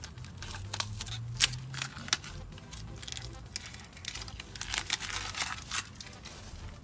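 Blue masking tape being peeled off a painted brake caliper and rotor hub and crumpled in the hand: irregular crinkling and tearing crackles.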